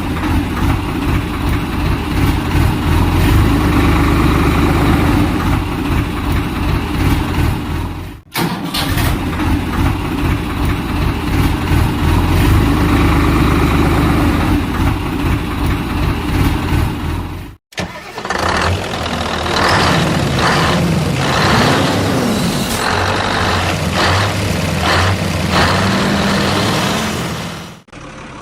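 Vehicle engine sound running with a pulsing low rumble, in three spliced stretches that cut off abruptly. The last stretch adds wavering pitched tones over the engine.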